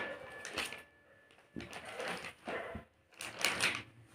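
Rustling and handling noises as hands turn over and unfold a furry plush item, in several short, irregular bursts with quiet gaps between.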